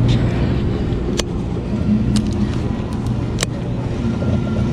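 Sportfishing boat's engine running in a steady low drone, with a few sharp clicks or knocks over it.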